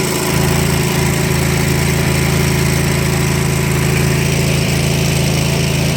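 Gasoline engine of a 5.2 gpm pressure washer running steadily, with no surging.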